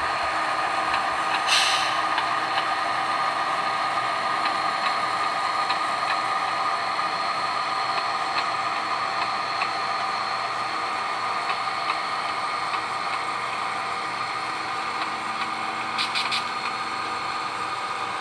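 Model diesel engine sounds from the DCC sound decoders of three HO scale locomotives running together as the consist creeps along, a steady engine hum through their small onboard speakers. Short air hisses come about a second and a half in and again near the end.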